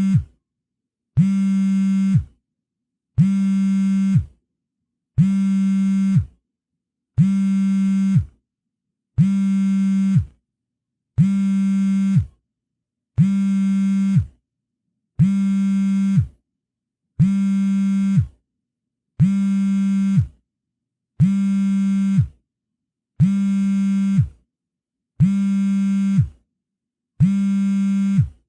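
Mobile phone on vibrate, buzzing in an even pattern: a low buzz about a second long, then a second's pause, repeating steadily.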